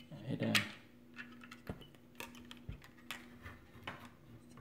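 Scattered light clicks and taps of a plastic credit card being handled against a metal heat sink on a circuit board, over a faint steady hum.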